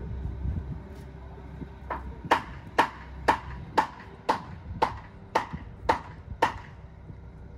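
Ten sharp knocks, evenly spaced at about two a second, each with a short ring, from about two seconds in until near the end. Under them runs the low, steady sound of a boom truck's engine.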